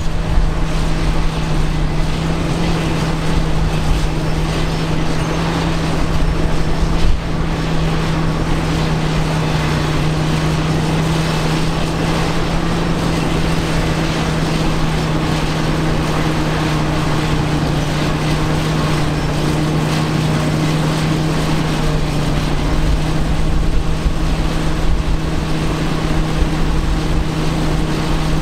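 Diesel engines of Caterpillar D8K crawler dozers working earth, a loud, steady drone at an even pitch.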